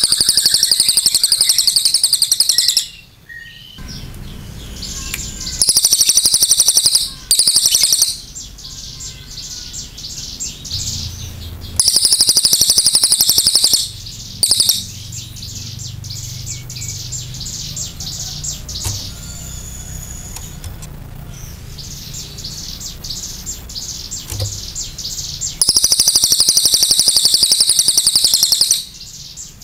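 Crested jay (cililin) giving loud, fast rattling trills high in pitch, each lasting one to three seconds, about six times, with fainter rattling between them.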